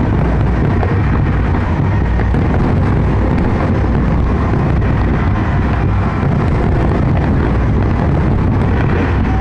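Large fireworks display, many shells bursting close together and blending into one continuous low rumble, with wind buffeting the microphone.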